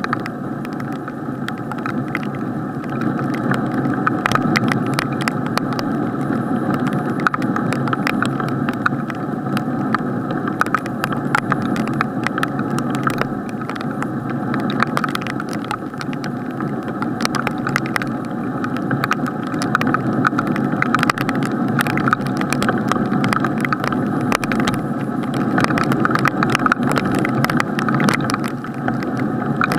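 Rain heard from inside a sealed waterproof action-camera housing: a steady muffled rush with many sharp ticks of raindrops striking the case.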